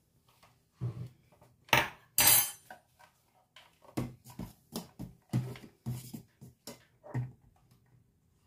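Metal beaters of a switched-off electric hand mixer knocking and clinking against a stainless steel mixing bowl as the mixer is handled. Two loud clanks come about two seconds in, then a run of lighter knocks.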